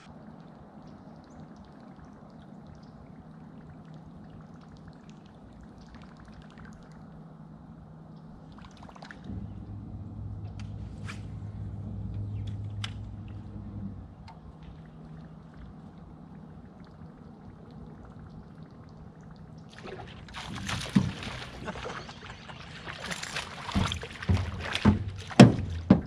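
A small bass hooked on a topwater lure splashing and thrashing at the surface as it is reeled toward the boat, a run of loud irregular splashes over the last six seconds. Under it and before it, the steady low hum of the boat's bow-mounted electric trolling motor, louder for a few seconds near the middle.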